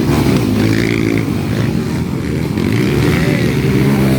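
Motocross bikes' engines running, their pitch rising and falling as the riders work the throttle.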